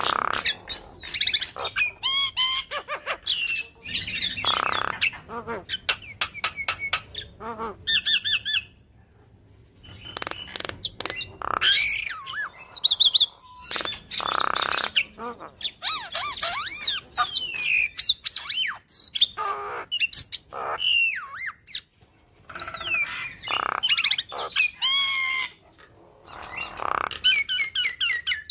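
Javan myna chattering: a fast, varied string of whistled glides and trills broken by several harsh squawks, with two short pauses about nine and twenty-two seconds in.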